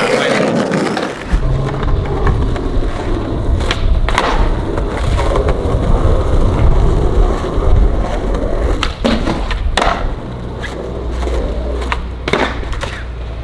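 Skateboard wheels rolling on concrete with a steady low rumble, broken several times by sharp clacks of the board popping and landing as the skater runs a line of tricks.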